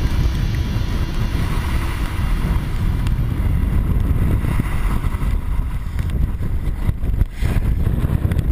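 Gale wind buffeting an exposed microphone on a sailboat's bow in a steady heavy rumble, with the rush of breaking seas along the hull. It dips briefly about seven seconds in.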